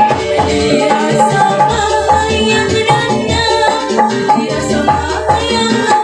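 Live wedding band music played loud over the sound system, with a steady drum beat and a woman singing into a microphone over it.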